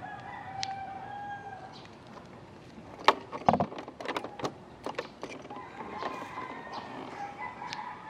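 A rooster crowing: one held call near the start and a longer one in the second half. A cluster of sharp clicks and knocks falls in the middle and is the loudest sound.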